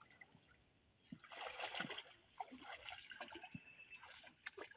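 Footsteps wading through shallow, grassy floodwater: irregular splashing steps starting about a second in.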